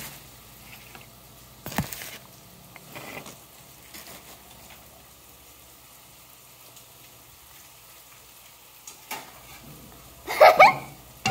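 Low steady room hiss with a sharp knock about two seconds in and a fainter one about nine seconds in, then a short loud burst of a girl's voice near the end.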